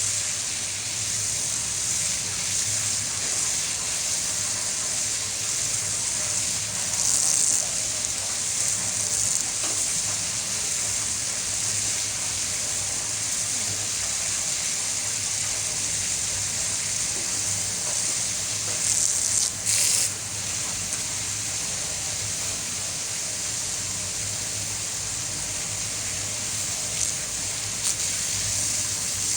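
Steady rush of water, with a low steady machinery hum underneath; the rush swells briefly twice.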